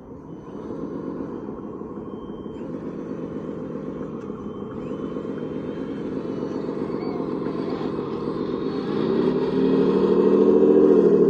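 Radio-controlled construction model running with a steady motor or engine-type drone. About nine seconds in it grows louder and rises in pitch, as under more throttle or load.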